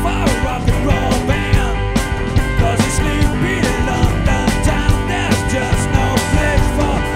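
Live rock band playing an instrumental passage on electric guitar, bass guitar and drum kit, with a steady beat. Over it a lead line slides up and down in pitch.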